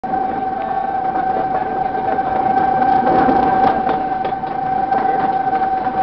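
Narrow-gauge train's horn sounding one long, steady, unbroken blast over the rattle and knocking of the coaches running along the track.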